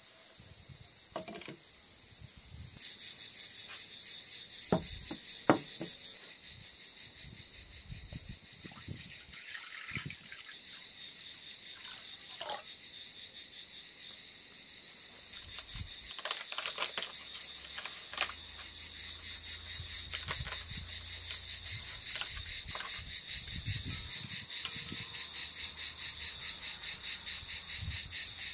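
Crickets chirping in a fast, even pulsing trill that starts a few seconds in and grows louder past the middle, with a few sharp knocks and clicks of things being handled on a wooden table.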